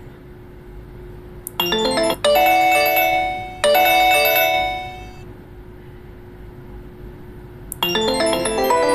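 HTC One Max ringtone and notification tones played from the phone's speaker: a short bell-like chime melody starts about a second and a half in and fades out by about five seconds. Near the end a click comes, then another tune begins.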